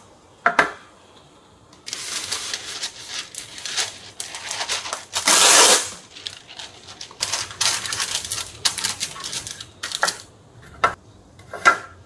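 Stiff wax paper crinkling and rustling as it is unfolded and pressed in to line a box, loudest midway, after a knock of the box being set down about half a second in. Two sharp clicks near the end.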